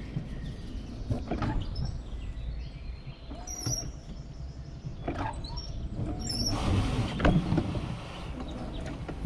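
Wiegand alpine coaster sled running along its steel tube track, heard from the rider's seat: a steady low rumble from the wheels with creaks and several short clicks and knocks.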